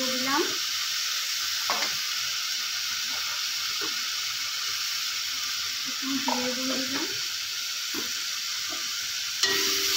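Ginger-garlic paste and turmeric frying in hot oil in a kadai, with a steady sizzle throughout. A sharp click comes near the end.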